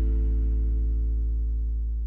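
Background music ending on a long held chord over a deep bass note, slowly fading out.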